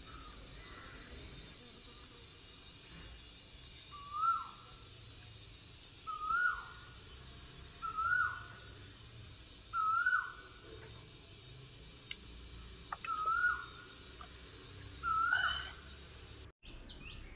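A bird calling over and over: a short note that rises and then drops, repeated six times about every two seconds over a steady high hiss.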